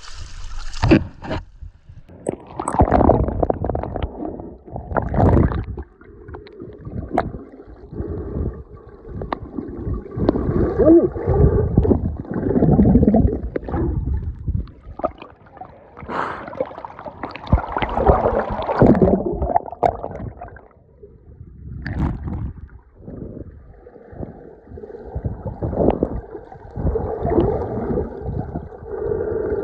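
Muffled gurgling and sloshing of water heard from an underwater camera, coming in uneven surges.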